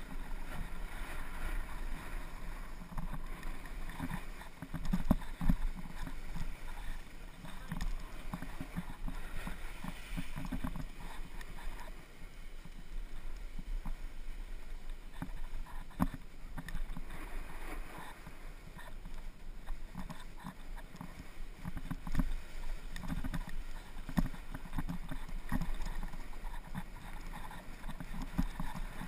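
Skis sliding and scraping over packed, tracked-up snow on a downhill run, with irregular low bumps, and wind buffeting the helmet camera's microphone.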